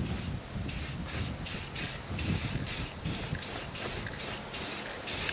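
Aerosol spray paint can spraying in short hissing bursts, about three a second.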